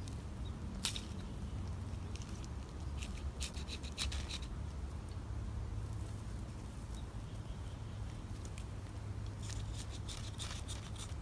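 Ferrocerium rod being struck to throw sparks onto tinder: short, sharp scrapes, one about a second in, a quick run of them around three to four seconds in, and another run near the end, over a low steady rumble.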